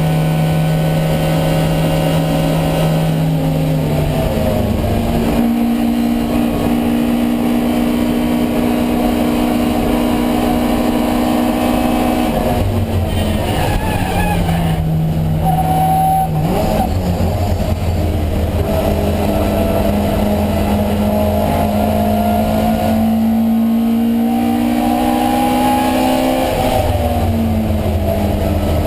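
Racing Alfa Romeo Giulia 1600's twin-cam four-cylinder engine running hard, heard onboard. Its note holds steady, shifts in pitch several times at gear changes and climbs slowly under load through the second half.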